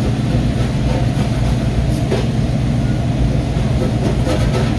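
PowerSoak pot-washing sink's circulation pump running: a steady, loud low drone.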